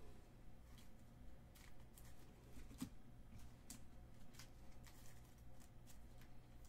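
Faint handling of baseball trading cards: cards slid through the hands and set down on a table, an irregular scatter of soft clicks and taps over a low steady hum.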